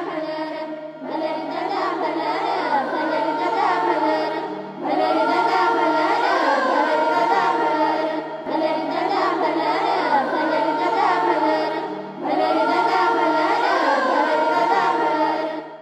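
Song sung by a woman and a group of children over a steady low drone, in phrases of about four seconds with short breaths between them, fading out at the very end.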